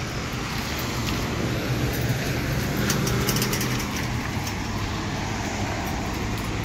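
Steady traffic noise on a wet road, with a vehicle engine running as a low, even hum.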